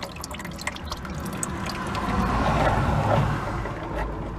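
Ratchet wrench clicking as it turns an oil filter loose, with a louder rush of noise in the middle that fits oil trickling into a drain pan.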